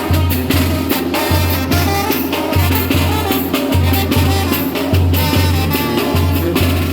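A children's banda (brass and wind band) playing a lively Latin tune, with deep bass notes pulsing about twice a second under the horn melody and drums.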